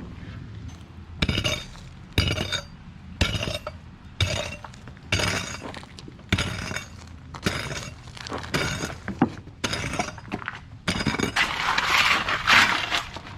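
Hand tools striking and breaking up old asphalt pavement, about one blow a second, with broken chunks clinking. A longer scrape near the end.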